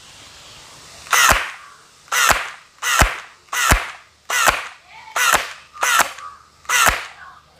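Toy pistol fired eight times in single shots at a handheld plastic target card, about one shot a second, each a sharp snap with a short tail.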